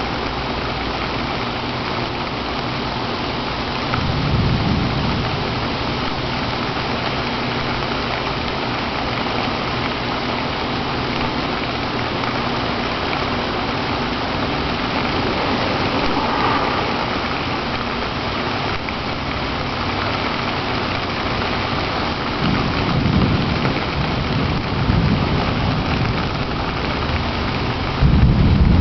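Steady rain falling, with a few short low rumbles, the loudest near the end.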